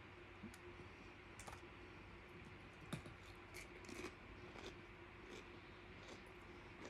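Faint, scattered small clicks and crunches of someone eating: chewing a shrimp ceviche tostada and a plastic fork picking at ceviche in a foil tray, over a steady faint hum.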